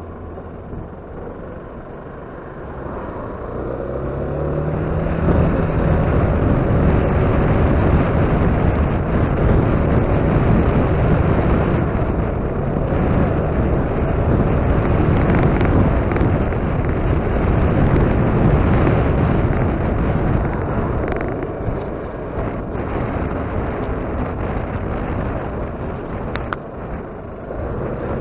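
Yamaha X-Max 250 scooter's single-cylinder engine running under way with wind rush. It rises in pitch as the scooter accelerates a few seconds in, holds steady, and eases off briefly near the end.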